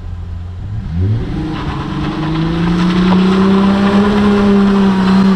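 Holden Commodore ute's engine idling, then revving up about a second in and held at high revs as it does a skid, with a hiss of tyre noise over the engine.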